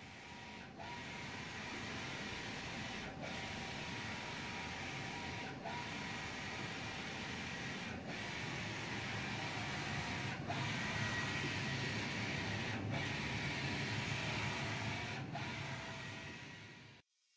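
Large-format inkjet printer printing onto vinyl film, its print-head carriage sweeping back and forth with a steady mechanical run. There is a short break about every two and a half seconds, and the sound cuts off just before the end.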